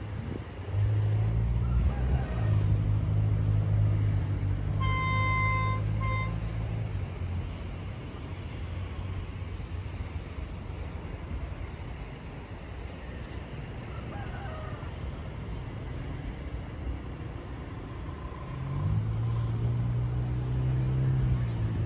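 A low, steady engine drone that swells about a second in and fades after about seven seconds, then returns near the end. A horn sounds twice about five seconds in, one long blast and one short.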